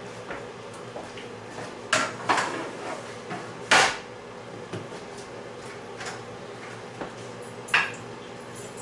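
Pans and dishes clanking as they are moved and set down on a stovetop: a handful of separate sharp knocks, the loudest a little under four seconds in.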